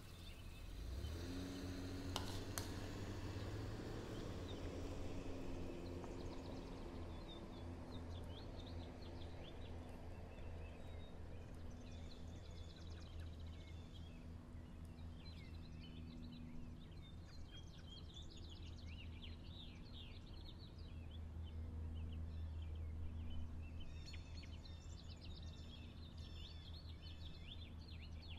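Kimchi jjigae simmering in a small pan: many small bubbles popping in quick irregular ticks over a steady low hum.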